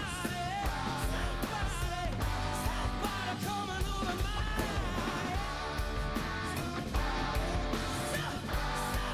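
Hard rock band playing live: a male lead singer over electric guitar, electric bass and a drum kit struck hard.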